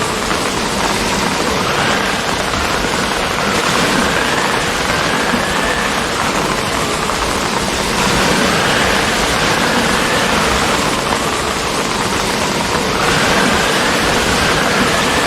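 Steady rain falling, a dense even hiss with no letup.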